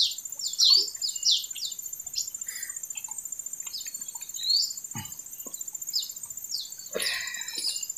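Birds chirping in quick runs of short falling notes, thick in the first couple of seconds and then sparser, over a steady high insect buzz. A single dull thud about five seconds in and a brief scuffle near the end.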